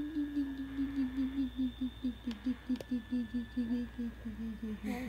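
A voice humming one long, slowly falling low note that pulses about five times a second, in a playful wavering hum.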